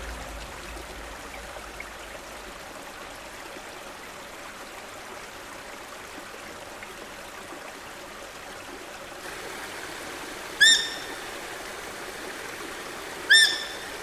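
Steady rush of water, with two short, high, clear calls about two and a half seconds apart near the end.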